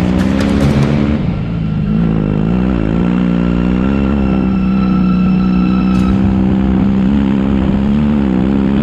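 Motorcycle engine running under way, its revs dipping and rising several times in the first few seconds, then held steady.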